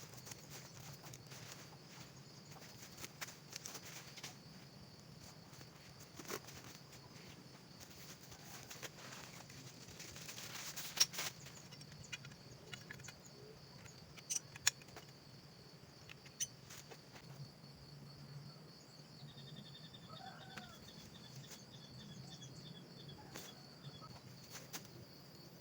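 Steady, high-pitched chorus of forest insects, with scattered clicks and knocks. A short run of rapid chirps and a few brief calls come about two-thirds of the way through.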